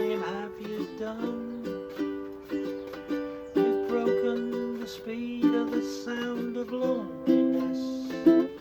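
Plucked acoustic string instrument playing an instrumental melody, one picked note after another, each ringing out and dying away, with no singing. The sound is close, as in a small room.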